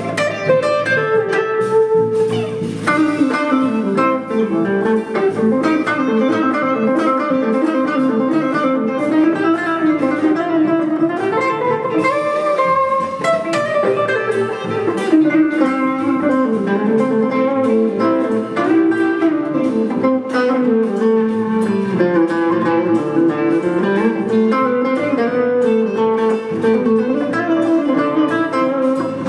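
Solo semi-hollow electric guitar played through a small combo amplifier: a continuous passage of picked notes and chords over a moving lower line.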